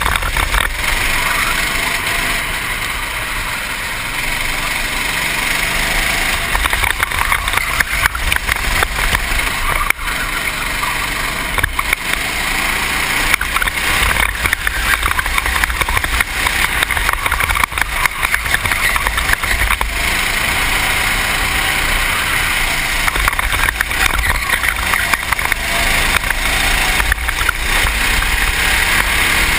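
Racing kart engine running at speed through corners and down a straight, heard from a helmet-mounted GoPro with wind rush and buffeting over it.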